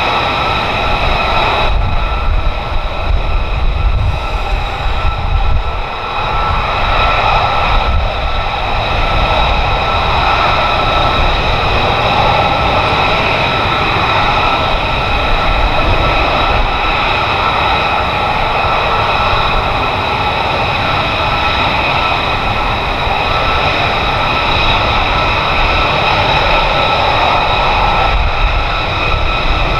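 F-35B fighter's jet engine running loudly and steadily, several high whining tones held over a rushing noise without a break.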